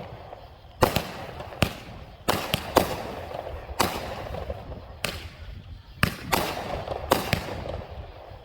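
A 200-gram consumer fireworks cake firing its shots: sharp reports about one a second, some in quick pairs, over a continuous rushing noise.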